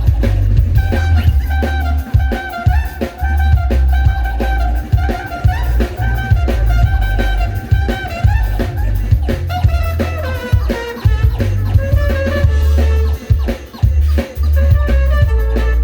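Live band music: brass horns playing held melody notes over a drum kit keeping a steady beat and a heavy bass line.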